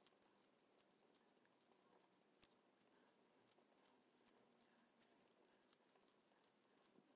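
Near silence with faint, scattered small clicks and rustles: wooden knitting needles and yarn being handled while stitches are cast on.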